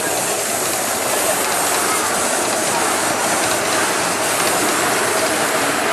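Miniature live-steam C58 locomotive passing close by with its ride-on cars, giving off a steady hiss of steam.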